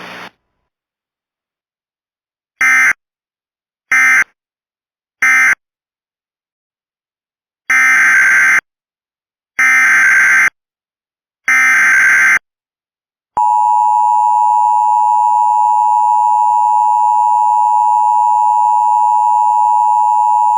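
Emergency Alert System tones. First come three short bursts of buzzy digital data, the end-of-message code closing the previous warning. About two seconds later come three roughly one-second data bursts, the header of the next warning. Then the steady two-tone attention signal starts and holds for about seven seconds.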